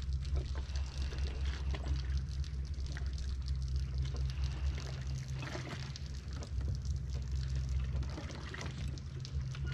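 Small waves lapping and trickling against a boat hull in irregular little splashes, over a steady low hum.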